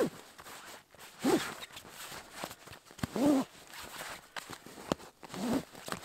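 Compression straps on a sleeping-bag stuff sack pulled tight through their buckles: four short zipping pulls a second or two apart, each rising and falling in pitch, with fabric rustling between them.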